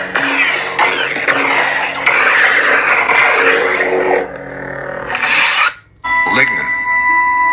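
Lightsaber sound font played by a CFX soundboard through the hilt's speaker: a steady hum overlaid with loud, noisy swing swooshes and crackle. It cuts out sharply just before the six-second mark, then a steady electronic tone comes in.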